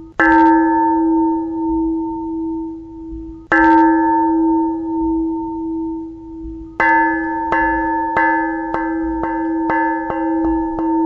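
A bell struck once and left ringing, struck again about three and a half seconds in, then struck again and again from about seven seconds in, quickening toward the end.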